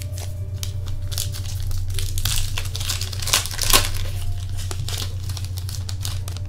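Foil trading-card pack being torn open and its wrapper crinkled by hand: a run of crackles, busiest in the middle, over a steady low hum.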